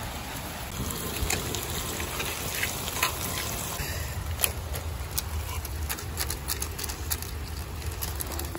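Chicken cooking in a kadhai over a wood fire: a steady sizzling hiss with scattered sharp crackles that come more often from about halfway through.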